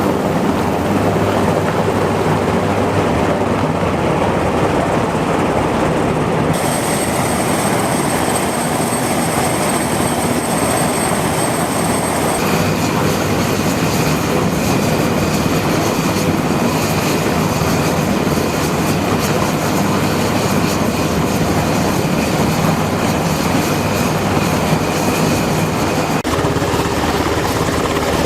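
Military rotorcraft running on a ship's flight deck, a loud steady rotor and turbine noise. The character of the noise changes abruptly a few times.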